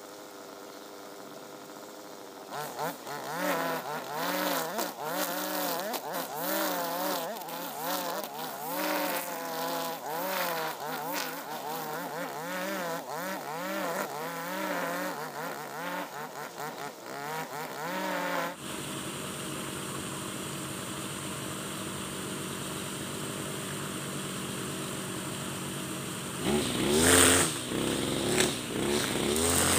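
Husqvarna 542RBS 42cc two-stroke backpack brush cutter with nylon line: it runs steadily at first, then about two seconds in is revved up and down over and over, about once a second, as it cuts long grass. It settles into a steadier note for several seconds, then revs up loudly again near the end.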